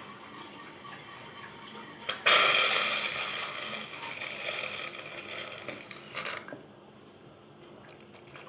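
Aerosol can of shaving foam spraying: a hiss starts suddenly about two seconds in, fades gradually over some four seconds, then cuts off.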